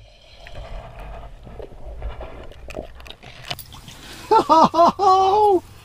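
Low handling and reel noise as a small yellow perch is reeled up to the ice hole on a spinning rod. About four seconds in, a man gives four short excited wordless calls and then one longer call.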